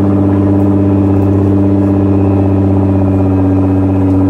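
Nissan 370Z's V6 engine idling loud and steady just after being started.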